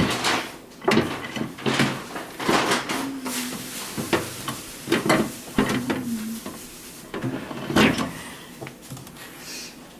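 A series of knocks, clicks and rattles of a microwave oven being handled: its door and glass turntable tray. A short low hum comes and goes in between.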